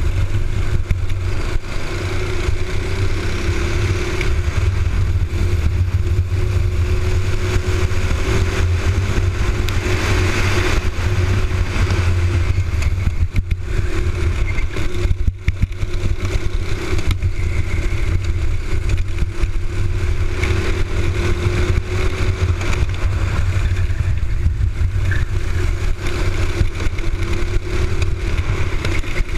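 Racing kart's Honda single-cylinder four-stroke engine running at race speed, heard from on board. Its note rises and falls repeatedly as the throttle opens and closes through the corners, over a heavy, constant low rumble.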